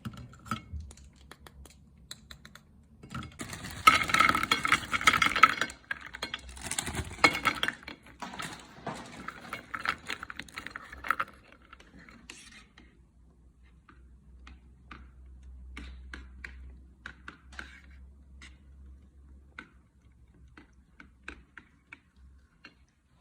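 Brittle meringue crunching and crackling as a small meat grinder crushes it, with metallic clicks and clinks from the grinder. The crunching is dense for several seconds in the first half, then thins to scattered small ticks.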